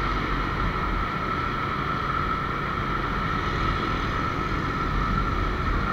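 Steady motorbike running noise heard from a moving scooter, engine and road noise mixed with the hum of surrounding scooter traffic, without sudden events.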